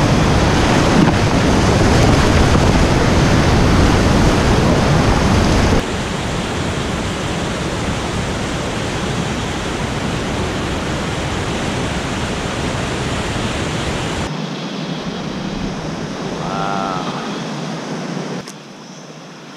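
Whitewater rushing through a rocky boulder rapid, a steady noise of churning water. It is loudest for the first several seconds and drops in abrupt steps, becoming much quieter near the end.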